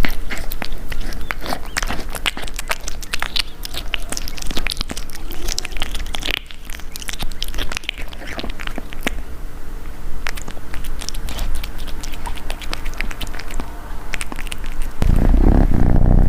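Kitten eating close to the microphone: rapid wet chewing clicks and smacks. About 15 s in, a loud low purr starts.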